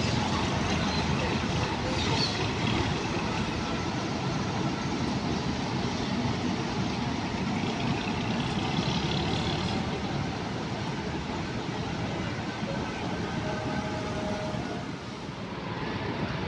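Intercity coach bus's diesel engine running as the bus pulls away and drives off, over a steady hum of traffic.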